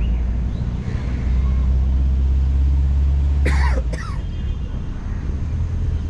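Low, steady engine rumble of passing motor traffic, louder for a few seconds in the middle. A short harsh sound cuts in about three and a half seconds in, and faint bird chirps sit above the rumble.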